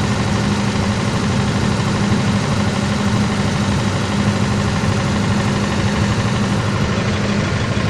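An engine running steadily at idle, with a constant hum that does not change.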